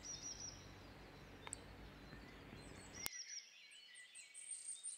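Faint chirping of small birds, repeated short high calls, with a sharp click about three seconds in.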